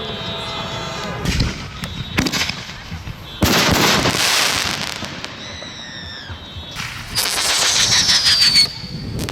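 Consumer fireworks going off: a couple of sharp cracks, then a loud hissing burst, and whistling tones that slide down in pitch. Near the end comes another long hiss with a falling whistle.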